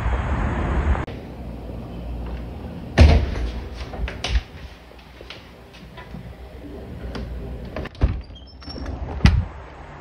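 Low wind rumble on the microphone for the first second, which cuts off abruptly. Then a handful of scattered knocks and thuds, loudest about three seconds in and again near the end, of the kind a door makes when it is handled.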